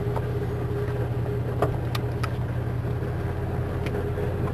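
Steady low hum of a vehicle's engine running, heard from inside the vehicle, with a few light clicks.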